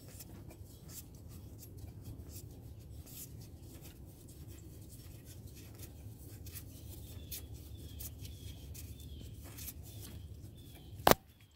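Faint scraping and light metal clicks as a belt pulley's bolt is turned out by hand, with one sharp click near the end.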